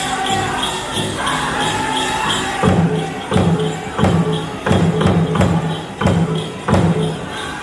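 Powwow drum group singing over a big drum beaten at a steady pace of about one and a half strokes a second. About a third of the way in, the singing thins and the drum strokes become much louder and heavier, continuing at the same pace.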